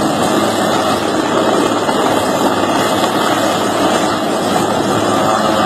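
Loud, steady engine drone with a faint constant low hum underneath, unbroken throughout.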